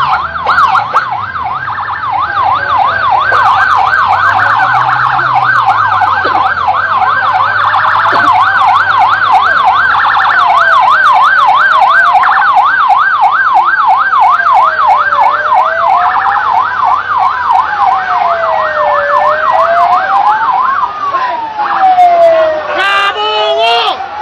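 Police escort sirens, loud: one on a rapid yelp and another on a slower rising-and-falling wail. A little over halfway through the yelp stops and the slow wail carries on, and near the end a different siren pattern comes in.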